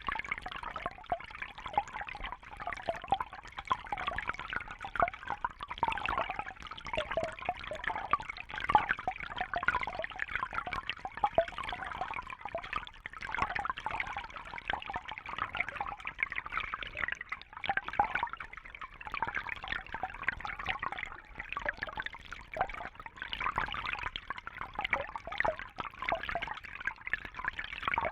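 Small brook babbling and trickling over stones, a steady bubbling flow of water with many small splashes.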